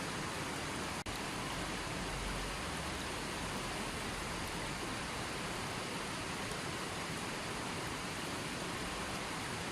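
Running water flowing with a steady, even rush, briefly cutting out for a split second about a second in.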